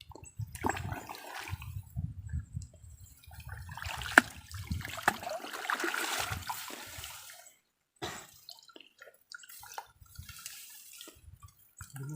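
Water splashing and sloshing, with low bumps and a few sharp clicks; the water sound is loudest through the first seven seconds or so, then cuts off and comes back fainter.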